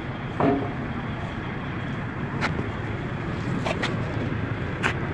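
Engine of heavy construction machinery running steadily with a low drone, with a few sharp clanks and knocks over it.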